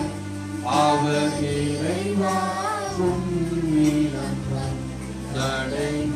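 Church hymn sung over sustained instrumental chords during Mass, the singing line rising and falling over held low notes.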